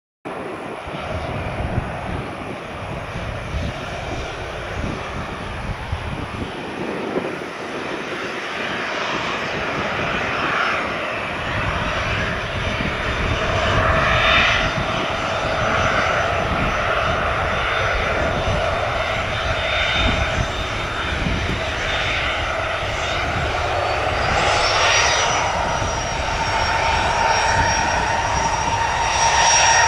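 Jet airliner engines running with a steady rushing roar and a whine over it. The whine rises in pitch about 24 seconds in, and the overall sound grows slowly louder.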